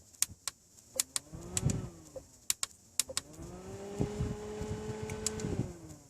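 Small handheld mini fan's electric motor spinning up and winding down as its button is clicked: a brief rise and fall in pitch in the first two seconds, then it spins up again, runs steady, and winds down near the end, with sharp button clicks throughout.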